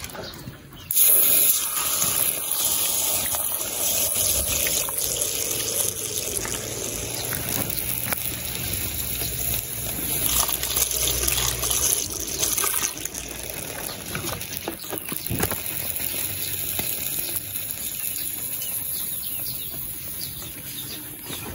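Water being poured out, splashing over stone bricks and running onto the dirt ground. It starts suddenly about a second in and goes on steadily.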